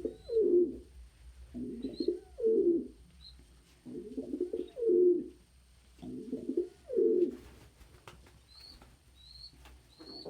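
Domestic pigeons cooing: four low, rolling coo phrases about two seconds apart, which stop about seven seconds in. Faint short high peeps are heard throughout, more of them near the end.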